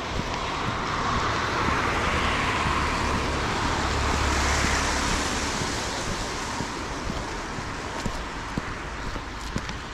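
A car passing on a nearby road: tyre and engine noise that swells over a few seconds, peaks with a low rumble, then fades away.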